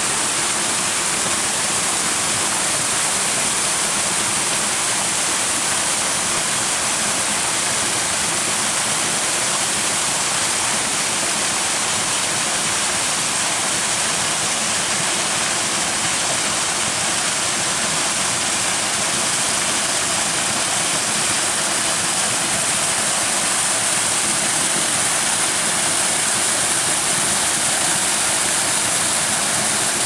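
Waterfall and the shallow stream below it pouring and splashing over rocks: a steady rush of water, strongest in its high hiss and unchanging throughout.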